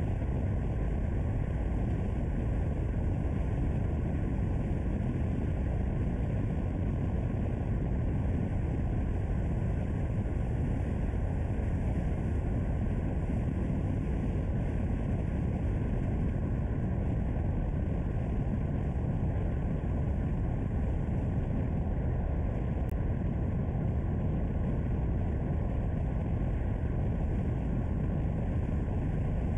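Car driving on a mountain road: a steady low rumble of engine and tyre noise that holds even throughout.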